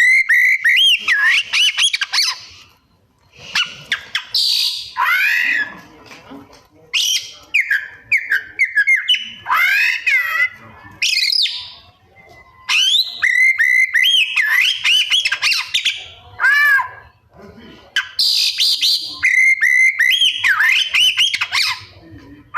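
Oriental magpie-robin (kacer) singing loud bouts of clear whistles and fast sweeping, warbling notes, each bout a couple of seconds long and broken by short pauses. The song is laced with mimicked calls of other birds, the "isian" prized by keepers.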